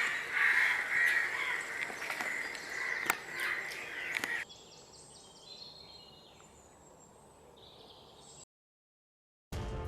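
Birds calling loudly and repeatedly outdoors for the first four or so seconds, then a sudden drop to a quieter outdoor background. About a second of silence follows near the end, and music starts just before the close.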